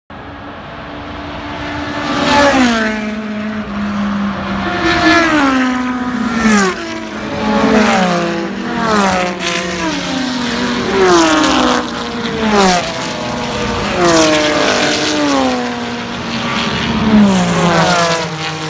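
Vintage race cars passing one after another at speed, about ten of them, each engine note falling in pitch as the car goes by.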